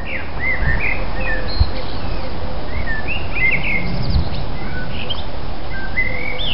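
Birds chirping and twittering, many short whistled calls overlapping, over a low background rumble.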